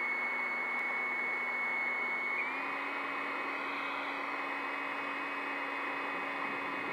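Electric ducted fan of a 90 mm Freewing F-18 RC jet running at a steady low throttle before the takeoff roll: a high whine over a lower hum and a rushing air sound. Its pitch steps up slightly about two and a half seconds in.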